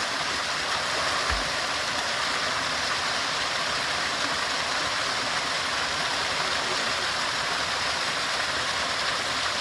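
Running water of a moorland stream or small waterfall, a steady, unbroken rush.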